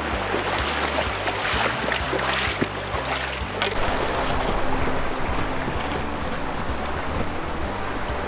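Background music with a bass line moving in steps, over the steady rush of a shallow river.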